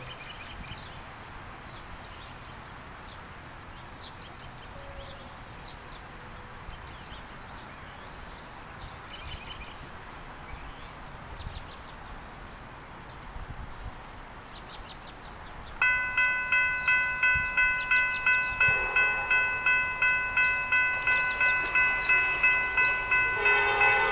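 Railroad grade-crossing warning bell starting suddenly about two-thirds of the way in and ringing in rapid, evenly repeated strokes, the signal that the crossing has activated for an approaching train. Before it there are only faint bird chirps, and near the end another set of tones joins the bell.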